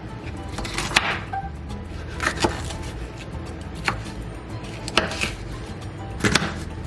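A kitchen knife cutting a vegetable into small cubes on a cutting board: separate, unhurried knocks, some in quick pairs, with background music underneath.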